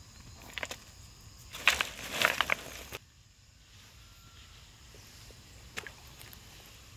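A quick flurry of sharp knocks and scrapes about two seconds in. Then an abrupt drop to a quiet natural background with an occasional faint tick.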